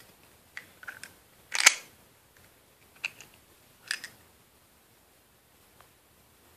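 A handful of sharp plastic clicks and snaps as a small black plastic canister and its cap are handled, opened and closed. The loudest snap comes about a second and a half in, with softer clicks a couple of seconds later.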